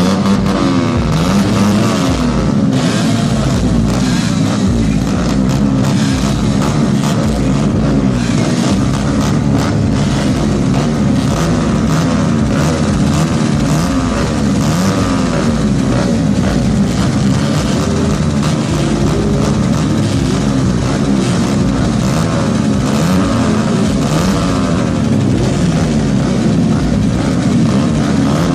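A full row of motocross dirt bikes running together at the start gate, many engines overlapping as riders keep blipping their throttles, so the pitches keep rising and falling.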